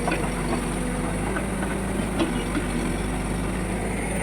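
Diesel engine of a backhoe loader running steadily, with a few light metallic knocks.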